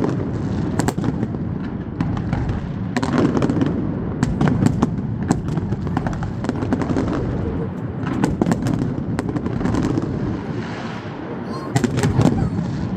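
Fireworks display: shells bursting in irregular volleys of sharp bangs and crackles, over the chatter of a large crowd.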